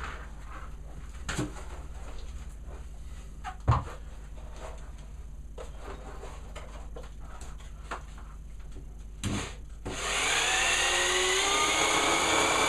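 Scattered knocks and clicks of parts being handled. Then, about ten seconds in, a handheld electric power drill starts and runs steadily, its motor whine rising slightly in pitch, while it is used on the headlight.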